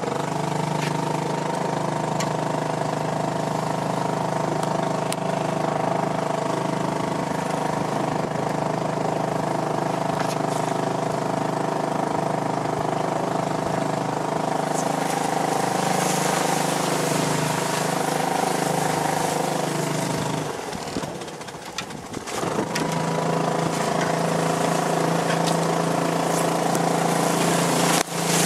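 Small outboard motor on a canoe running at a steady, even pitch. About three quarters of the way through it drops away briefly, then comes back at the same note.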